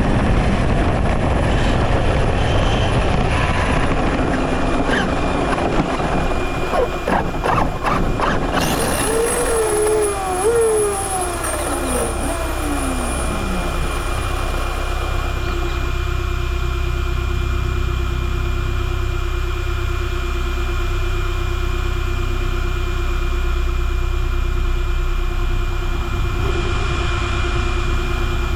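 Electric Arrma Kraton RC car running at speed, heard close up with heavy noise. About six seconds in comes a string of sharp knocks as it tumbles, then several falling whines, and after that a steady hum with a held tone.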